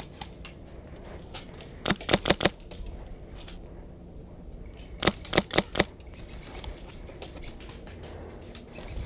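Airsoft guns firing two short rapid bursts, one about two seconds in and another about five seconds in, with fainter scattered single shots around them.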